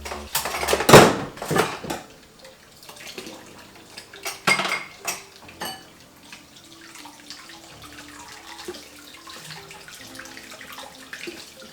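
Dishes and cutlery being washed and rinsed in a kitchen sink under a running tap, clattering against each other. The loudest clatter comes about a second in, and a ringing metal clink follows around four and a half seconds in.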